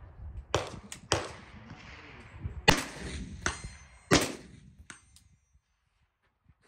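A series of rifle shots from a suppressed .308 rifle: sharp cracks about half a second to a second and a half apart, the two loudest about two and a half and four seconds in, the last fainter one near five seconds.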